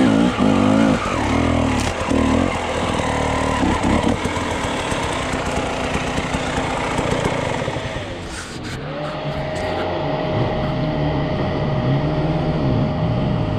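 Two-stroke KTM enduro motorcycle engine revving up and down on and off the throttle, easing off about eight seconds in, then running at a steady low note as the bike slows to idle.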